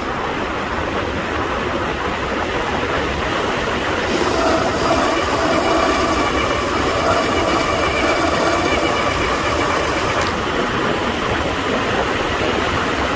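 Wind rushing over the microphone on a fast road-bike descent. About four seconds in, the CUBE Attain GTC Pro's disc brakes start to squeal under braking, several steady tones held above the wind to the end.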